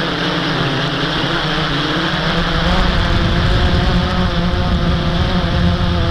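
Blade 350 QX quadcopter's brushless motors and propellers whirring steadily in flight, their pitch wavering slightly, over a low wind rumble on the microphone.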